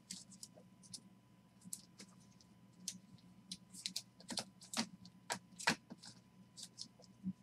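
Trading cards being handled, sorted and set down in stacks on a table: faint, irregular light clicks and taps.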